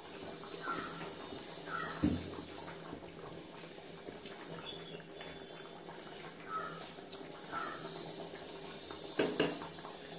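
Fish curry simmering in a clay pot on a gas burner: a steady hiss with soft bubbling, a knock about two seconds in and a couple of sharp clatters near the end.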